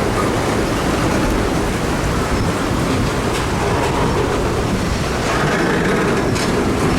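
Freight train cars rolling slowly along track submerged in floodwater, with a steady rush of noise and a few clicks from the wheels.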